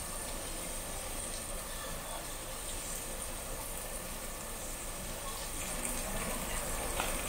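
Thick slabs of pork belly sizzling on a charcoal grill: a steady crackling hiss that grows a little louder near the end as the meat heats and starts to smoke.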